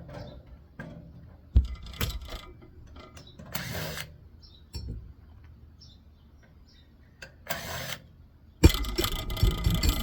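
Hand-tool dismantling of a microwave's electrical panel: scattered clicks and knocks, two short scraping rasps, and a dense run of clattering metal knocks near the end.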